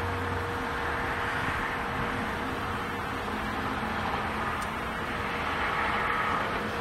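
A long, constant ringing tone of unknown origin, held at one steady pitch, heard under loud rushing wind noise on a phone's microphone.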